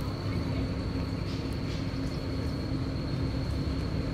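Steady low rumbling drone with a steady hum and a faint thin high-pitched whine running through it.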